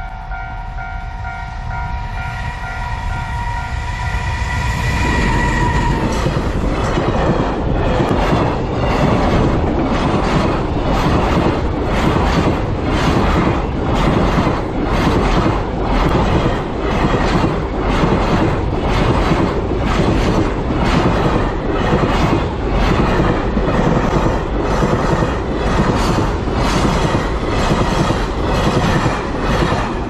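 Japanese level-crossing alarm ringing, then a container freight train hauled by an EF210 electric locomotive passes close by. The sound builds over the first few seconds as the train arrives, then the wagon wheels clatter over the rail joints in a long, steady run of knocks.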